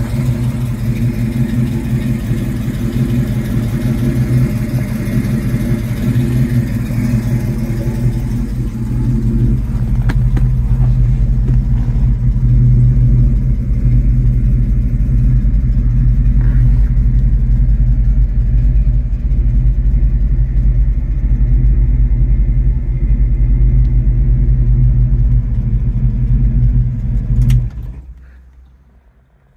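Ford 390 big-block V8 of a 1967 Mustang GT idling steadily through its dual exhaust, then switched off with the key near the end, the sound dying away over a second or two.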